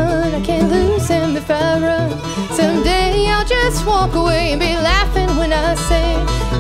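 Bluegrass band playing live, with acoustic guitars, fiddle, mandolin and upright bass, and a woman singing lead.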